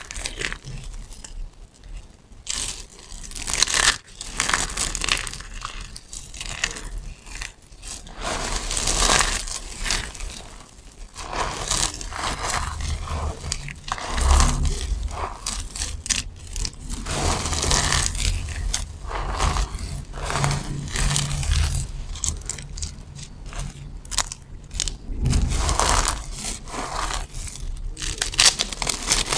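Hands crushing, squeezing and raking through a pile of dry soap shavings, making a crunching, crinkling noise that comes and goes unevenly with each handful.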